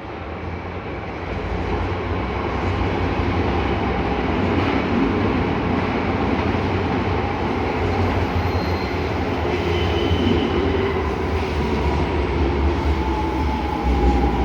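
Odakyu Line electric train passing close by: a loud, steady rumble of wheels and running gear builds over the first couple of seconds and holds, with a faint whine that slowly falls in pitch near the end.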